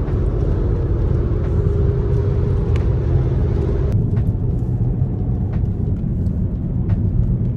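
Steady low rumble of road and engine noise heard inside a moving car's cabin. A faint hum over it fades out about four seconds in, and there are a few light clicks.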